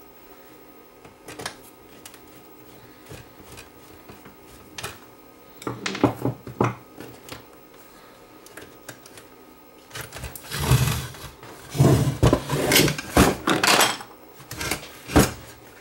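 Handling noise as the amplifier is worked on: scattered clicks, then a cluster of knocks and scrapes about six seconds in and a busier run of clattering knocks from about ten seconds on.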